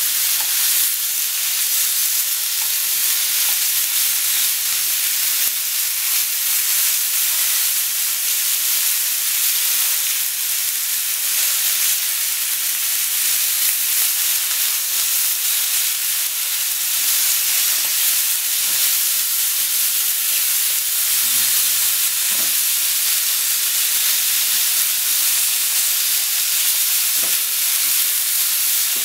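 Sliced pork and Japanese green onion sizzling steadily in hot oil in a frying pan, with a couple of faint taps as chopsticks turn the meat.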